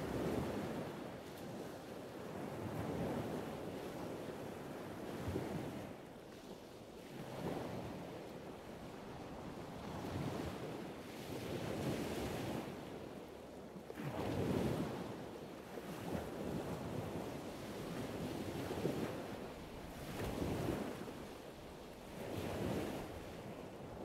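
Surf washing and wind: a rushing noise that swells and eases every couple of seconds, with no bird calls standing out.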